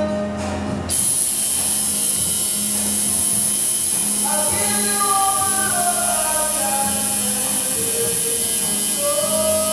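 Background music with a singing voice coming in about halfway, over a steady electric buzz from a tattoo machine needling the skin.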